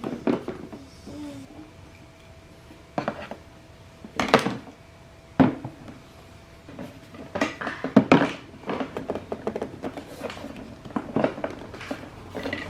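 Irregular knocks and clatters of toys being handled, with sharp hits about three, four and five seconds in and a cluster near eight seconds, then a run of lighter clicks.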